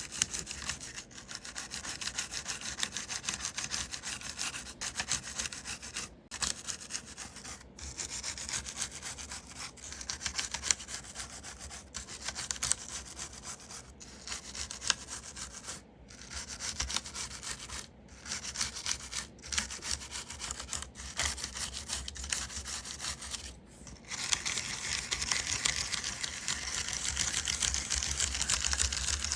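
A brush scrubbing a dirty mechanical keyboard in quick back-and-forth strokes, a rapid rasping hiss broken by brief pauses. Near the end the scrubbing runs louder without a break.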